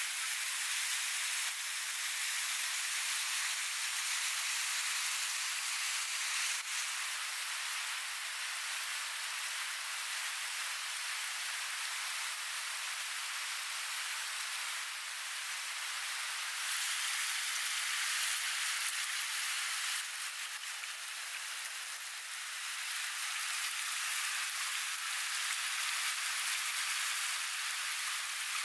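Rushing river water tumbling over rocky rapids: a steady hiss of white water that shifts slightly in level a few times.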